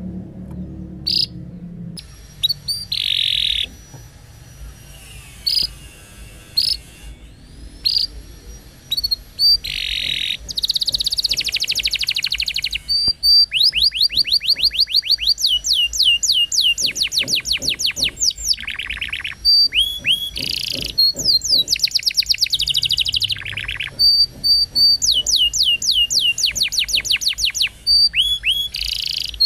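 Domestic canary singing: short chirps and trills at first, then long rolls of fast repeated notes with brief pauses between phrases.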